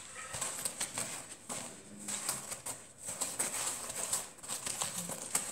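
Soft, irregular gritty rustling and small clicks as freshly fried krapfen are turned by hand in a glass bowl of granulated sugar.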